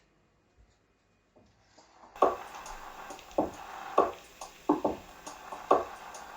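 Near silence for about two seconds, then a song starts playing through Yamaha Stagepas 300 PA speakers, heard across a small room from a few metres away: a beat of sharp hits, about one to two a second.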